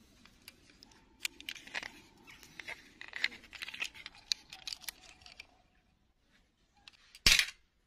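Small plastic doll and its rubbery clip-on dress being handled and pulled apart: a few seconds of sharp clicks and crackly rustling, then one loud short crack near the end.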